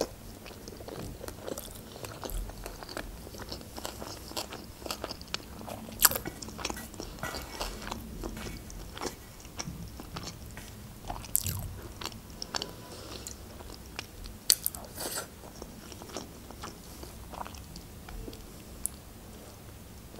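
Close-miked eating sounds: chewing mouthfuls of noodles, with many short, sharp mouth clicks and smacks, a few of them much louder than the rest.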